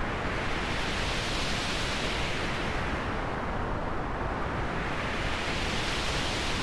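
Synthesized noise transition effect: a steady hiss whose brightness sweeps up and down like a filter opening and closing, brightest about two seconds in, dullest around four seconds, and brightening again near the end.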